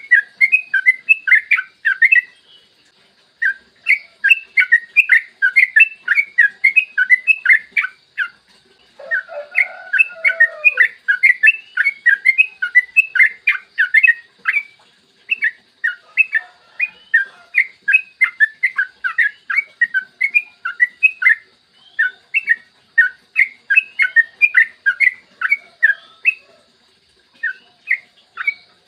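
Yellow-vented bulbul (trucukan) singing long runs of quick, clear repeated chirps, about four to five a second, broken by a few short pauses. A lower, drawn-out call sounds under the song around nine to ten seconds in.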